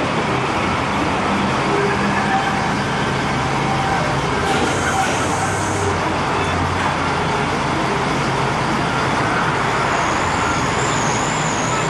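Steady road traffic noise: a dense, unbroken rumble of vehicles, with a faint wavering high tone near the end.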